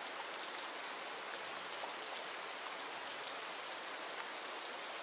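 Steady rain falling in a forest, an even hiss of drops on leaves and ground with faint scattered drips.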